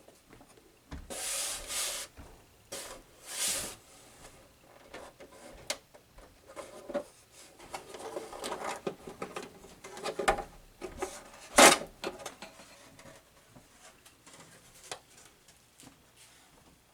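Hands handling a Sony PS-LX220 turntable's plastic housing while taking off its back cover: irregular rubbing and scraping, with a sharp clack about twelve seconds in.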